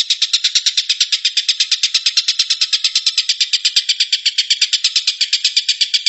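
Oriental dollarbird (tengkek buto) giving its rapid chattering call: a fast, even run of about ten notes a second that keeps going without a break.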